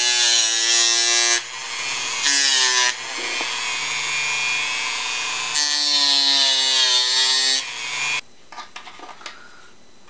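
Handheld rotary tool with a small grinding stone running at high speed and grinding notches into the tip of a bamboo dip pen. The motor whine wavers in pitch, with three spells of gritty grinding when the stone bites. It stops about eight seconds in, followed by a few faint handling ticks.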